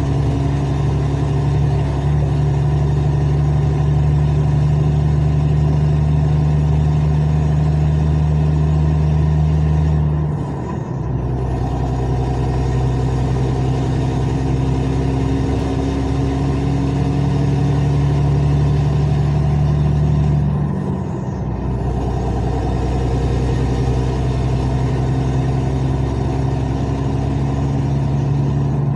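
Car engine and exhaust running loud and steady while driving, the exhaust flex pipe burst so the exhaust runs almost straight through. The engine note slowly rises, breaks off briefly and picks up again twice, about a third and two thirds of the way through.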